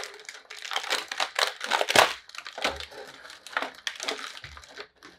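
Clear plastic action-figure packaging crinkling and crackling as it is handled and pulled apart by hand, in an irregular run of crackles that is loudest about two seconds in.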